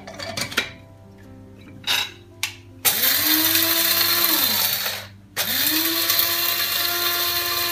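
Small electric spice grinder grinding dry-roasted nigella, fenugreek and cumin seeds in two pulses with a short break between. Each time the motor whine rises as it spins up and drops as it slows. A few light clicks come first, as the grinder jar is handled.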